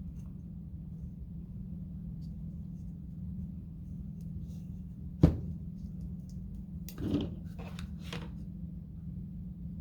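Craft materials handled on a tabletop: one sharp knock about five seconds in, then a few lighter taps and rustles around seven to eight seconds, over a steady low hum.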